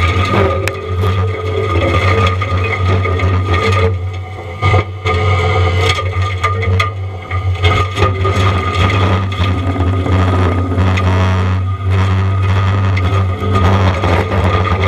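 A compact track loader's diesel engine runs steadily under load while its forestry mulching head grinds pine, with irregular wood cracking and scraping throughout.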